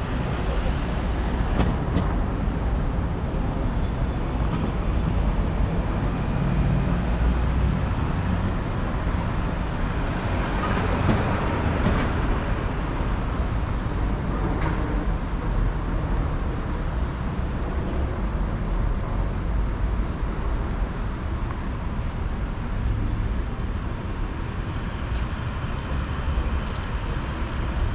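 Road traffic running past: a steady rumble of engines and tyres that swells about ten to twelve seconds in as a vehicle goes by.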